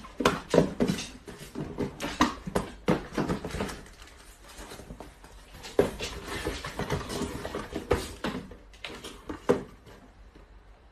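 Small cardboard boxes handled and set into a larger cardboard box: irregular rustles and light knocks, busiest in the first few seconds and again about six seconds in, quieter toward the end.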